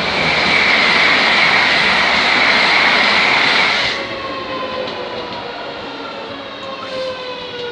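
Train passing close by: a loud rush of wheels and air for about four seconds, then quieter, with a whine falling slowly in pitch.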